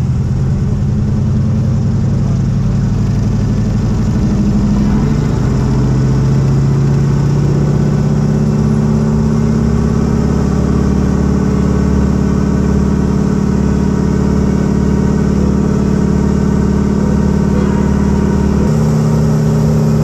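Vintage piston aircraft engine running steadily, its note shifting about five seconds in and again near the end.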